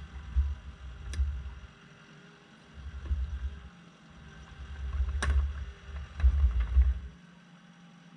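Kubota SVL75 compact track loader's diesel engine labouring in surges of low rumble as the machine is rocked back and forth to walk a derailed track back onto its idlers. Two sharp knocks come about a second in and again about five seconds in, and the rumble stops abruptly near the end.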